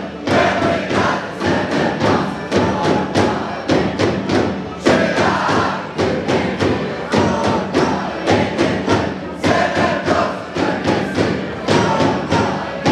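Dubași carolers singing a winter carol together to a steady beat on dube, large hand-held frame drums, struck about four times a second.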